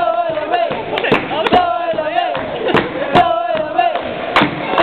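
Football supporters singing a chant together in long held notes, with sharp beats keeping time a little under twice a second.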